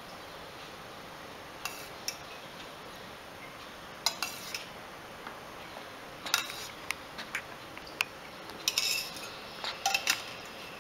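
Scattered clinks and taps of a spoon against a ghee jar and the pan rim as tablespoons of ghee are spooned into the thick kesari, with a cluster of quick clinks near the end.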